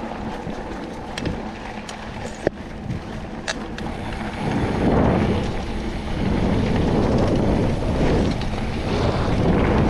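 Mountain bike rolling fast down a dirt trail: wind buffeting the action-camera microphone over the rumble of tyres on dirt, with a few sharp clicks early on. The rush grows louder about halfway in.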